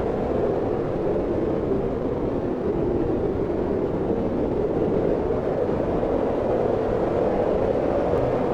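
Wind blowing steadily: an even, low rushing noise.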